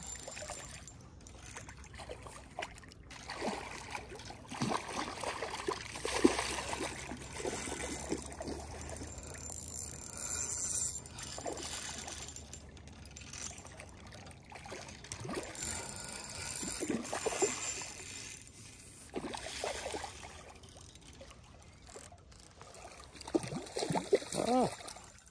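A hooked rainbow trout thrashing at the surface close to the bank as it is fought in, giving irregular splashes and water sloshing against the shore.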